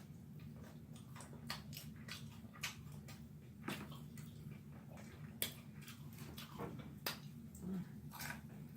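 Close-up eating of egg rolls: irregular sharp crunches and mouth smacks over a low steady hum.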